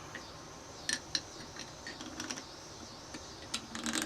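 Scattered light metallic clicks and ticks of a WEN 4-inch lathe chuck and its chuck key being handled, with a quick run of clicks near the end.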